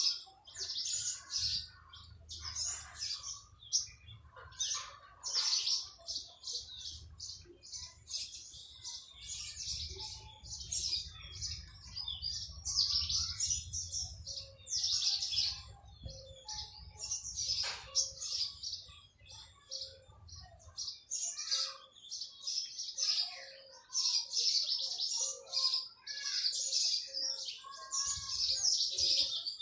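Small birds chirping constantly in a dense chorus of rapid, short, high-pitched chirps. A low rumble runs beneath them and stops about two-thirds of the way through.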